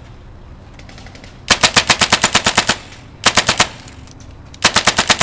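Airsoft rifle firing three full-auto bursts of rapid, evenly spaced shots. A long burst starts about a second and a half in, a short one follows, and another comes near the end.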